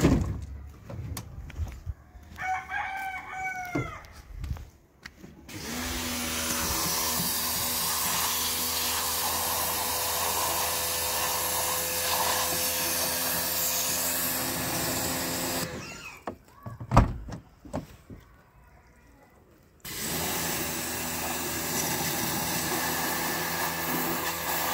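Pressure washer running, a steady motor hum under the hiss of its water jet, as it sprays a car's door sill. It starts about six seconds in, cuts out for about four seconds with one sharp knock in the gap, then starts again. Before it starts, a rooster crows once, briefly.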